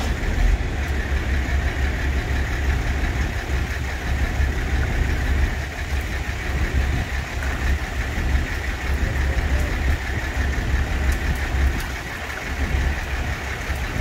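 Bucket truck's engine idling steadily, a low rumble that keeps the aerial lift's boom powered.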